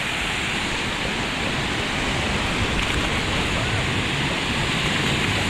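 Steady rushing of water running down water-park slides, with faint voices in the background.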